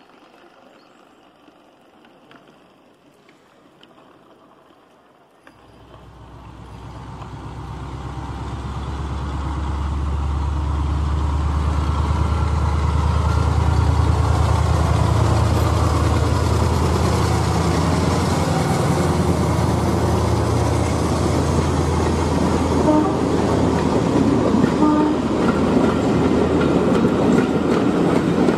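Model diesel locomotive's DCC sound decoder playing diesel engine sound: after a few seconds of faint ticking from wagons running over the track, a deep engine rumble starts suddenly about five seconds in, builds over several seconds and then runs steady and loud.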